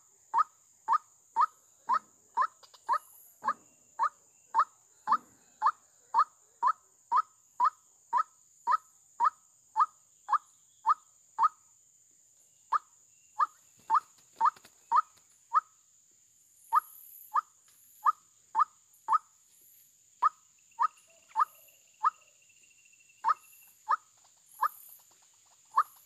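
White-breasted waterhen (ruak-ruak) calling: a monotonous run of short, identical notes, about two a second, pausing briefly now and then. Faint high chirps come in over the second half.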